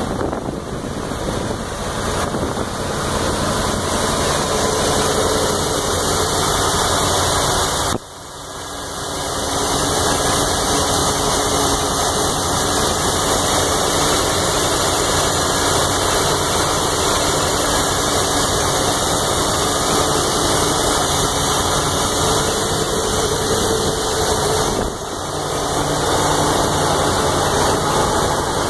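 1988 GMC C7000 medium-duty truck's carbureted gasoline V8 idling steadily, heard close with the hood open. The level dips briefly twice, about a third of the way in and again near the end.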